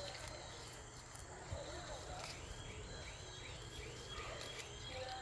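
Quiet outdoor ambience: a high chirp repeats about three times a second from about two seconds in, over a faint low hum and a few soft clicks.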